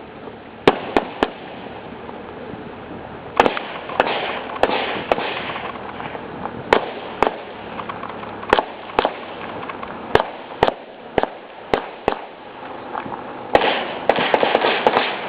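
AR-15 rifle fired over and over in quick pairs and short strings, more than twenty shots, each with a rolling echo; near the end comes a fast run of shots close together.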